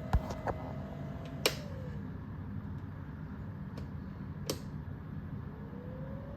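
A few sharp clicks over a low hum on an O scale model train layout being powered while it shows a short. A steady electric motor whine falls away right after one click and glides back up in pitch near the end, as power to the motor cuts out and returns.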